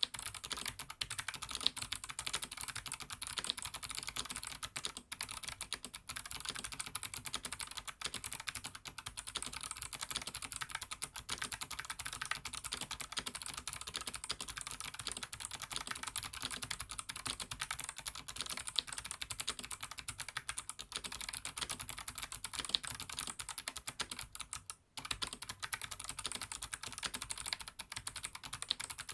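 Fast, continuous typing on an mStone Groove T87A SF custom mechanical keyboard with clicky Kailh Box Jade switches (springs lubed) on an aluminium plate: a dense run of sharp key clicks, broken by a brief pause about 25 seconds in.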